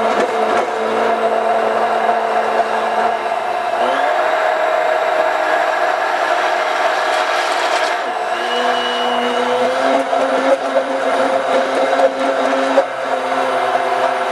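Handheld immersion blender running continuously, puréeing curry sauce in a stainless steel pot. Its motor pitch rises about four seconds in and drops again about four seconds later.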